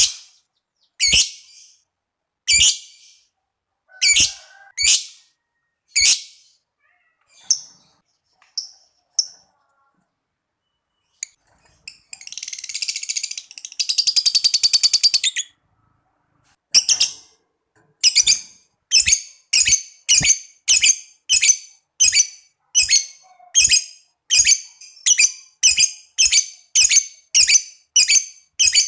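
Lovebird calls: sharp, high single shrieks spaced a second or two apart, then a rapid chattering trill of about three seconds (the long 'ngekek' that lovebird keepers prize), followed by a fast, regular run of sharp calls about one and a half a second.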